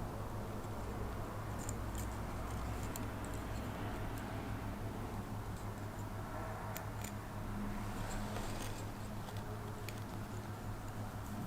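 Faint, scattered light clicks and ticks of a thin steel piston ring being worked into its groove on a motorcycle piston by hand, over a steady low hum.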